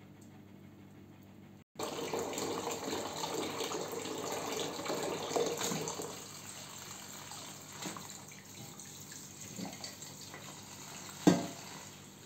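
Kitchen tap running into a plastic colander in a stainless-steel sink, starting suddenly about two seconds in and getting quieter about six seconds in. A few small knocks, and one sharp knock near the end.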